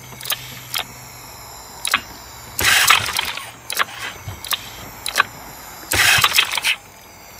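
Honda BF5 four-stroke outboard, running on butane pushed straight into the carburettor, being pull-started. Two short cranking bursts from the recoil starter come about three seconds apart, a few small clicks fall between them, and the engine does not catch.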